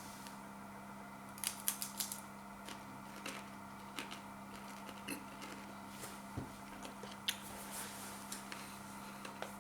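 Takis rolled tortilla chips being bitten and chewed: a quick run of sharp crunches about a second and a half in, then scattered crunches after, over a steady low hum.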